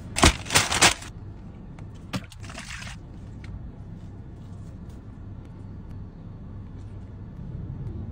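Hands slapping a plastic tray three times, then the soft wet squish and tearing of roast chicken being pulled apart by hand, over a low steady hum.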